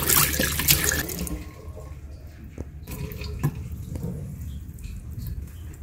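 Water running from a chrome tap into a washbasin, stopping about a second in; a few faint clicks follow.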